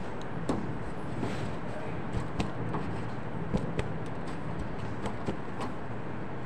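Steady workshop hum with a low drone, and several light clicks and knocks scattered through as cut pieces of material are handled and dropped on a cutting table.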